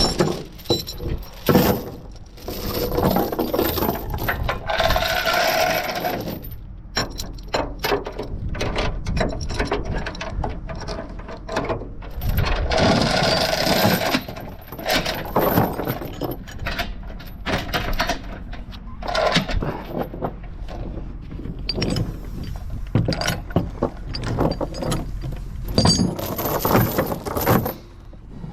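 Machinery working: irregular clanking and rattling over a low steady hum, with two louder stretches of noise, one about two seconds in and one around the middle.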